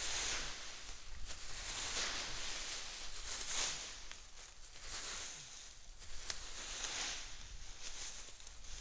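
Dry leaf litter rustling in repeated swishes about once a second, with a few sharp snaps or clicks between them.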